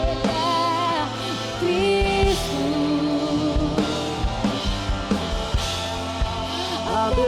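Slow worship band music with long held melody notes and scattered drum hits.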